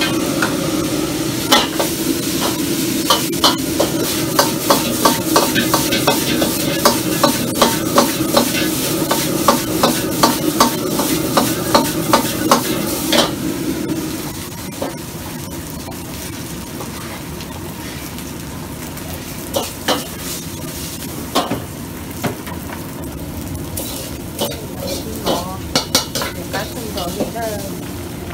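Metal ladle scraping and clanking against a wok while fried rice is stir-fried over a wok burner, with sizzling and the steady rush of the flame; the ladle strikes come about twice a second. About 14 seconds in the burner's rush drops and the clanks thin out to occasional knocks.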